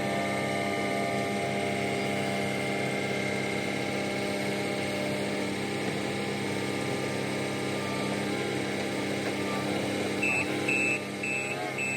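A truck engine idling steadily. About ten seconds in, a quick run of high repeated electronic beeps joins it for a couple of seconds.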